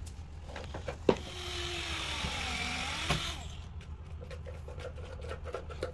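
A particle-board shelf panel being pushed into a metal rack frame: a sharp knock, then about two seconds of scraping as board rubs along the metal, then another knock and a few light taps.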